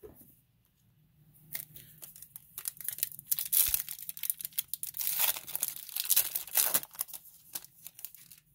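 Foil wrapper of a Topps Chrome baseball card pack being torn open and crinkled: a dense run of sharp crackles that starts about a second and a half in, is loudest in the middle and thins out near the end.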